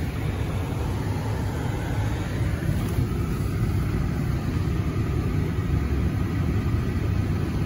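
Steady low rumble inside the cabin of a 2011 Buick Enclave, its 3.6-litre V6 idling while parked.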